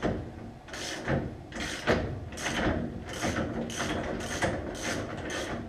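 Hand ratchet wrench being worked back and forth in quick repeated strokes, a couple a second, backing out a stubborn bolt on a car's front suspension.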